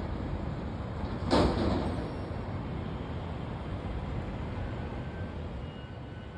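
Steady low hum of city traffic heard from high up, with one brief louder rush about a second and a half in.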